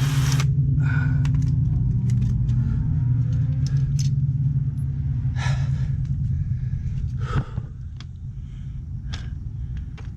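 Cordless drill running with a steady low hum as it backs out the bolts of a GY6 scooter's CVT cover, with a couple of sharp clicks; the sound drops off after about seven seconds.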